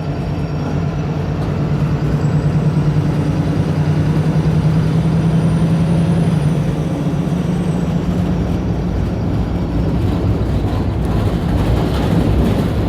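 Wright Pulsar single-deck bus engine working hard under acceleration, the "thrash" enthusiasts record. The engine note climbs gently and grows slightly louder about a second in, and a faint high whine rises and falls over the middle.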